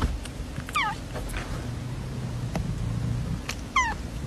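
Kitten giving two short, high mews, each falling steeply in pitch, about three seconds apart.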